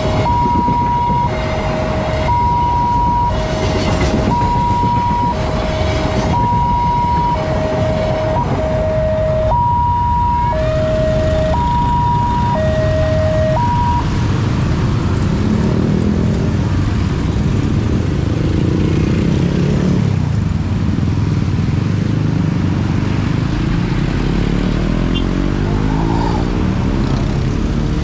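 Railway level-crossing warning alarm sounding a steady two-tone high–low alternation, about one tone a second, over the low rumble of a passing train. The alarm stops about halfway through, and motorcycle and car engines then rev as the waiting traffic moves off.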